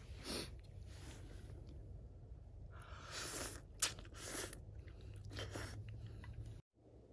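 A person eating noodles with chopsticks from a metal bowl: a few short bursts of chewing, with one sharp click about four seconds in. The sound cuts off suddenly near the end.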